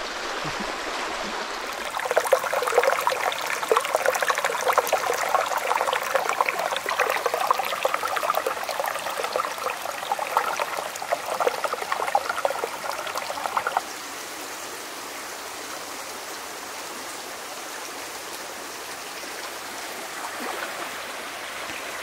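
Shallow rocky stream running and babbling over stones. From about two seconds in a closer, livelier burbling of water stands out, then stops abruptly about two-thirds of the way through, leaving a softer steady rush of water.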